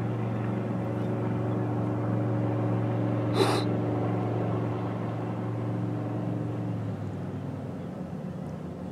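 Boat engine running steadily offshore, its hum dropping a little about seven seconds in. A brief sharp, high sound cuts in once about three and a half seconds in.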